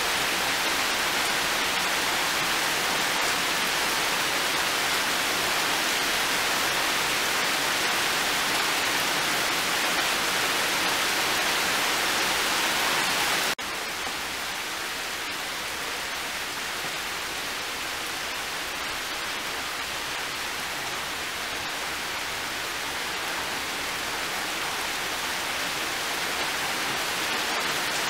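Heavy rain falling steadily, a dense even hiss. About halfway through it drops suddenly to a lighter level, then slowly grows louder again.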